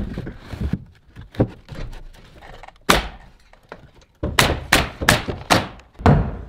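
A pneumatic framing nailer firing nails into wooden blocking: sharp single shots about a second and a half apart, then a quicker run of shots about two a second. Near the end comes a hammer blow on wood.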